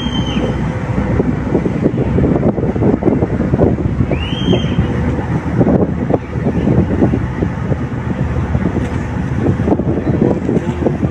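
Diesel engines of a passenger express boat running as it pulls away from the quay, a steady rumble with wind buffeting the microphone. Two short high chirps that rise and fall, one at the start and one about four seconds in.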